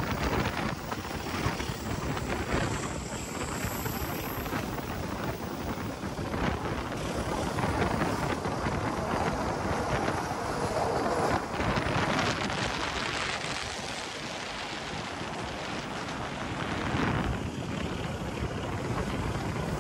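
Argo Parahyangan intercity passenger train running, heard from an open window or doorway: a steady rumble of wheels on the rails, with wind buffeting the microphone.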